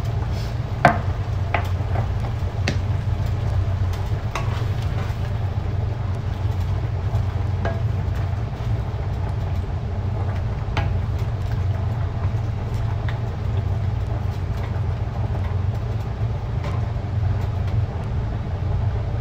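Wooden spoon stirring minced-meat sauce in a frying pan, with scattered knocks and scrapes against the pan and a sharp click about a second in, over a steady low hum.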